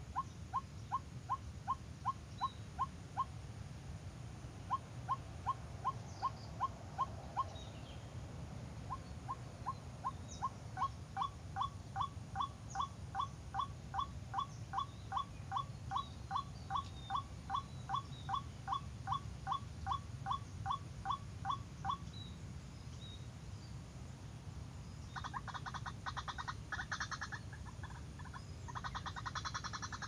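White-breasted waterhen calling: a long run of short, evenly repeated falling notes, about two to three a second, broken into three series with short pauses. Near the end a denser, harsher chattering starts.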